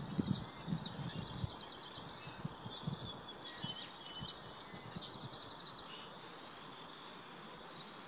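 Small songbirds chirping and giving quick high trills outdoors, over a faint steady high hum of insects. Low rumbling thumps in the first second and a half, trailing off over the next few seconds.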